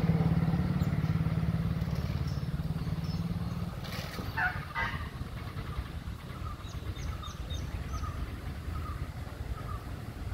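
A motor vehicle engine running close by with a steady low hum, fading away about four seconds in. After it a bird calls in short repeated notes, about two a second.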